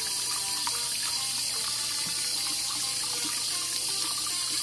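Tap water running steadily into a plastic strainer of soaked black beans in a sink as they are rinsed.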